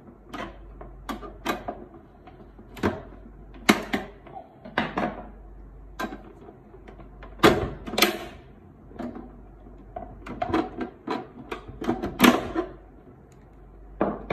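Plastic latches and casing of a Canon LBP6000 laser printer clicking and knocking as its side covers are worked open: a run of sharp, irregular clicks, roughly one or two a second.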